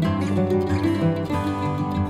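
Background music led by a plucked acoustic guitar.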